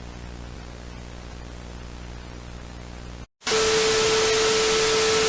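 Faint static over a low electrical hum. About three seconds in it cuts to a moment of silence, then loud hissing static comes in with a single steady tone running through it.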